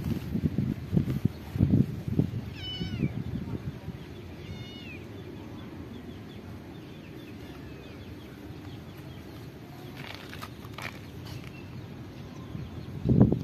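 Hungry cat meowing for food: two short, high meows a few seconds apart, with bursts of low rumbling noise in the first few seconds and again near the end.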